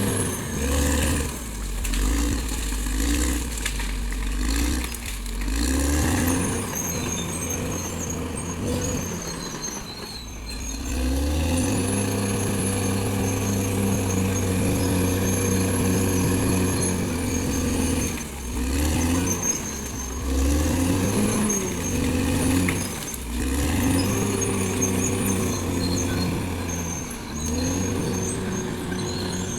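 Caterpillar D6R XL bulldozer's diesel engine working under load, its pitch rising, holding and dropping back again and again as the blade pushes, with a faint high whine that comes and goes.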